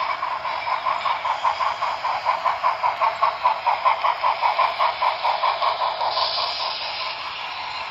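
HO scale model train rolling past on its track, the Southern Pacific cab forward locomotive leading freight cars, making a rhythmic clatter of about five beats a second that grows to its loudest halfway through and then fades as the cars go by.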